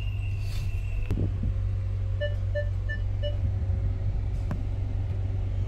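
Steady low rumble of a car in slow traffic, heard from inside the cabin. A thin high tone fades out about a second in, and four short beeps come in quick succession about two seconds in.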